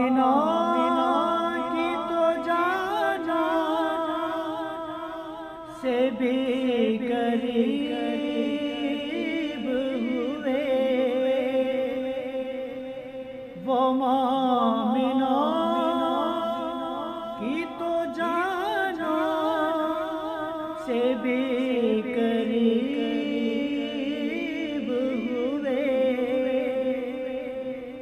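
A naat sung by a man's voice without instruments, in long ornamented phrases with held, wavering notes. A new phrase starts loud about every seven seconds and fades before the next.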